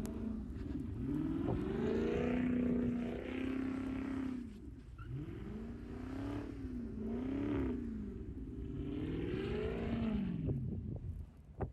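Car engine revved hard, its pitch rising and falling several times as the car spins its wheels doing donuts in snow; the revs die away near the end.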